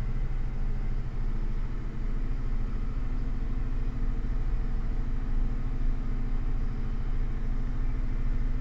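Rock truck's diesel engine running steadily at full throttle, a low, even drone heard from inside the cab, as the truck crawls up a haul-road ramp at about 3 mph under a heavy load in the bed.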